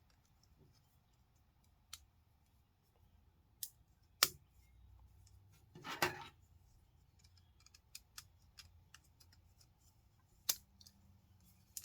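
3D-printed plastic truss pieces handled and slid together at their dovetail joints: scattered light clicks and knocks, the sharpest about four seconds in, with a brief scrape about six seconds in.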